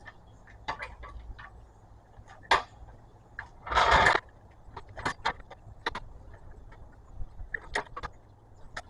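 Car jack being set up and raised under a car: scattered metal clicks and knocks, with one louder scrape lasting about half a second around four seconds in.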